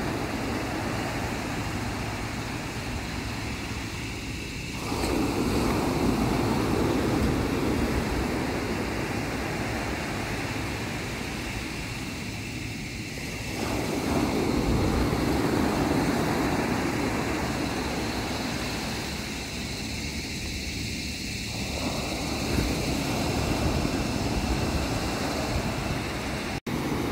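Sea waves washing in, the surf swelling louder about every eight seconds in three surges, with wind on the microphone.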